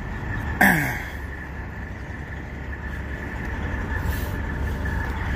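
Steady low rumble of semi trucks idling around a truck stop lot, with a faint steady whine over it. About half a second in, a brief loud sound falls in pitch.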